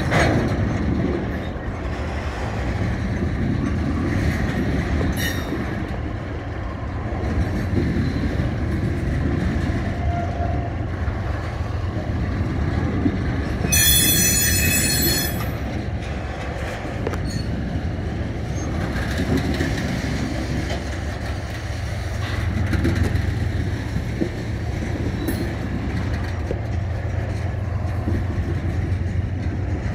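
Tank cars of a freight acid train rolling past: a steady rumble of steel wheels on rail with a few sharp clicks. Halfway through there is a brief high-pitched squeal from the cars, lasting about a second and a half.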